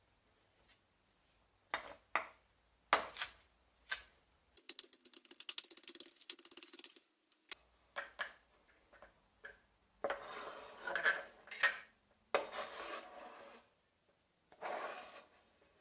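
Chef's knife on a plastic cutting board: a few single knocks, then a quick run of rapid chops through fresh herbs, then the blade scraping the chopped herbs across the board in several strokes.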